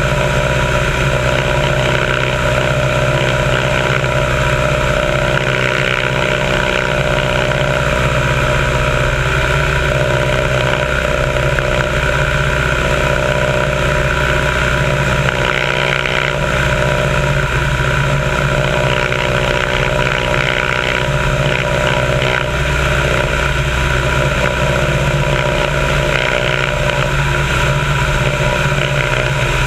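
Biplane's piston engine running steadily in flight, a constant drone with a stack of steady tones, under heavy wind rush across the wing-mounted camera in the slipstream.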